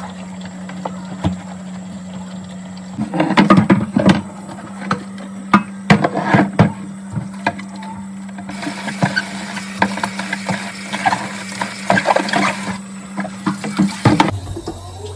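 Clattering and knocking of items being handled, over a steady low hum. A hissing rush like running water joins in for about four seconds in the middle.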